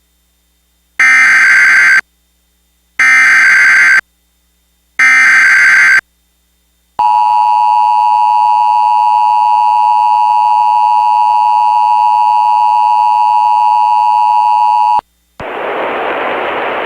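Emergency Alert System tones: three one-second bursts of the SAME header's digital data warble, a second apart, then the two-tone EAS attention signal held for about eight seconds. It cuts off and a voice starts reading the tornado warning near the end.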